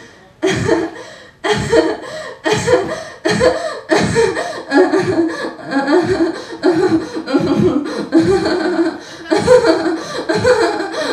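A slow beat of deep thumps, about one a second, with a woman's voice coming in about four seconds in and holding low, drawn-out notes over it into a microphone.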